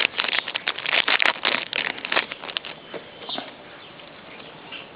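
Foil trading-card booster pack wrapper crinkling and tearing open, a dense crackle that fades to quieter rustling after about two and a half seconds.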